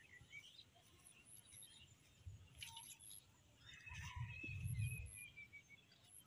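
Faint outdoor ambience with a bird calling: a thin, slightly falling call a little past the middle. At the same time there is a low rumble on the microphone.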